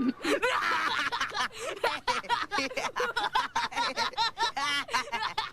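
Robot's computer-synthesized voice stuttering: rapid, chopped-up repeated fragments of robotic speech that do not form words.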